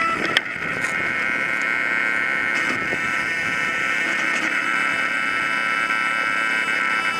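T-Rex 800 RC helicopter running steadily at speed with a constant high whine, heard up close from a camera on its frame while it still sits on the ground. A single sharp click sounds about half a second in.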